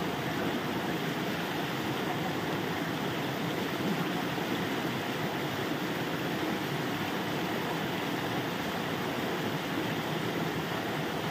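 Steady rush of running water: a shallow stream flowing over stones, with a small waterfall and a thin falling jet of water splashing into it.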